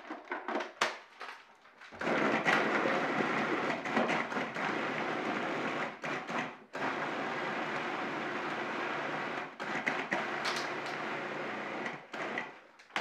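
Cuisinart food processor chopping apple pieces. After a few clicks and knocks it starts about two seconds in and runs for about four seconds. It stops for a moment, then runs again for about five more seconds and stops near the end.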